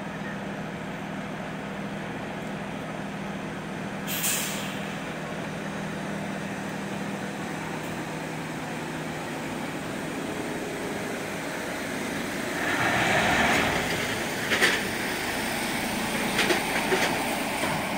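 Heavy box truck's diesel engine running steadily, with a short, sharp air-brake hiss about four seconds in. Near the end the engine noise swells as the truck drives up the ramp, followed by a few sharp knocks.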